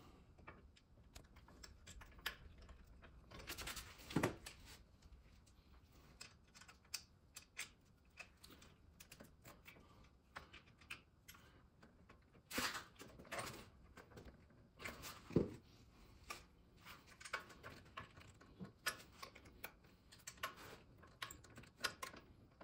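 Faint, irregular clicks and light taps of small parts being handled, with a few louder knocks scattered through.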